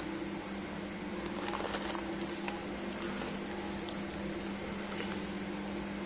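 Steady hum of a convection microwave oven running on preheat, with a few faint light ticks about two seconds in.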